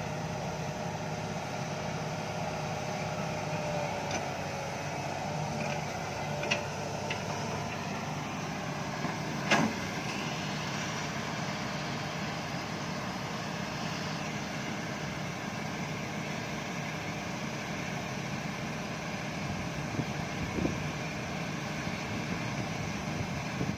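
Heavy diesel machinery running steadily, with a few sharp knocks or clanks; the loudest comes about ten seconds in, and a couple more near the end.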